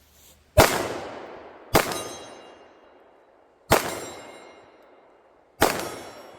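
Four gunshots at uneven intervals, each followed by the ringing of a struck steel target as the shooter engages steel plates.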